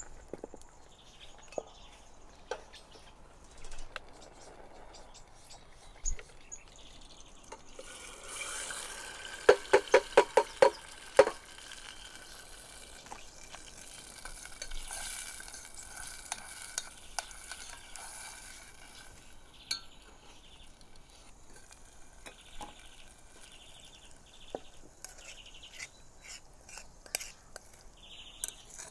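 A metal spoon stirring and scraping in a metal saucepan, with a quick run of about seven loud taps against the pot about ten seconds in. A soft hiss of the pot cooking over the wood fire runs through the middle.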